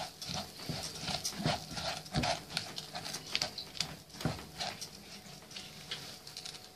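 Silicone spatula stirring raw rice grains in a non-stick frying pan: irregular light knocks and scrapes against the pan with the grains rustling. The rice is being toasted in butter and oil with fried spices before any liquid goes in.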